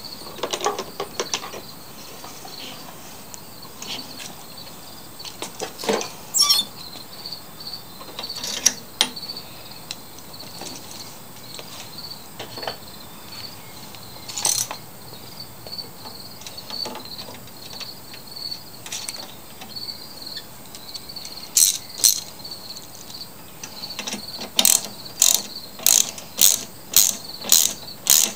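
Hand ratchet clicking as it tightens the fastener of a lawn mower's starter-rope guide on the handlebar. It comes in quick strokes of about two a second near the end, after scattered clicks and knocks while the guide is fitted.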